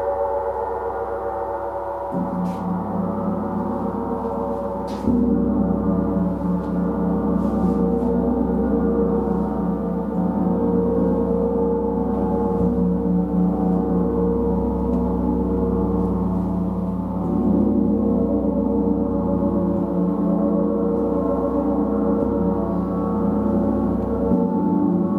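A gong played continuously, a dense wash of many overlapping ringing tones that sustain without a break. It grows louder after a fresh stroke about five seconds in.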